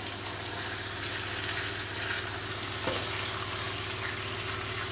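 Veal escalopes sizzling steadily as they fry in butter in a stainless steel pan, with a faint click of the fork about three seconds in as the pieces are turned over.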